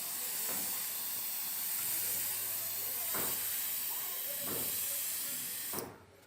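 A steady high-pitched hiss with a few faint knocks, cutting off abruptly near the end.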